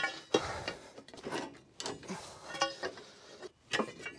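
Steel pry bar levering an excavator's idler and track adjuster assembly out of the track frame: irregular metal-on-metal scrapes and clanks, several with a brief ring.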